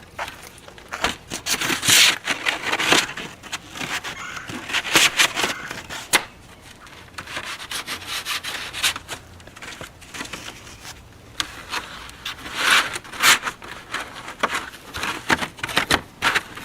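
A used steel bandsaw blade being handled, folded into a coil and packed into its cardboard box: irregular rubbing and scraping with sharp clicks, in bouts that come louder around 2, 5 and 13 seconds in.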